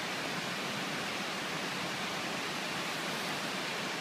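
Steady, even hiss of background noise with no distinct event in it.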